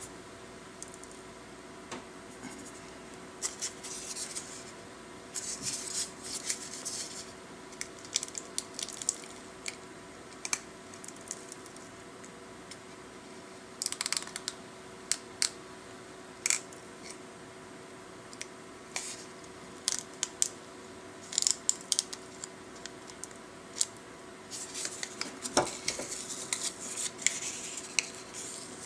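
Tiny solder balls being swept across a BGA reball stencil by a fingertip, ticking and skittering in irregular bursts, with loose balls spilling and pattering into the bowl below.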